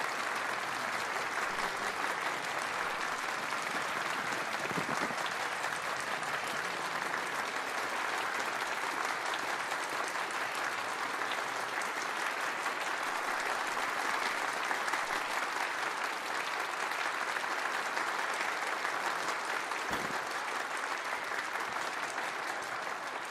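A crowd of guests applauding steadily, many hands clapping in a dense, even patter.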